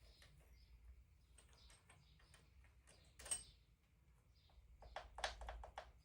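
Faint clicks and taps of hand tools working on an engine, with a sharper click about three seconds in and a short run of quick clicks near the end.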